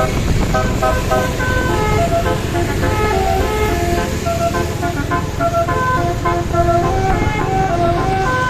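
Bus's multi-note Basuri telolet horn playing a quick melody of short stepped notes, with a low rumble underneath.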